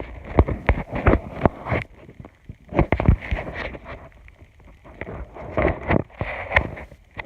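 Slime being squished and kneaded by hand, giving irregular sticky pops and clicks in clusters with short pauses between them.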